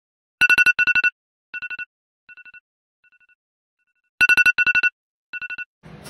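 iPhone alarm going off: clusters of rapid two-tone beeps, each cluster fainter than the last, then loud again about four seconds in.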